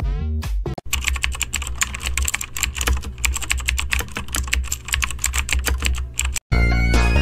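Rapid, continuous clicking of computer keyboard typing over a steady low bass, the stock meme sound effect. It cuts off suddenly a little over six seconds in, and music starts right after.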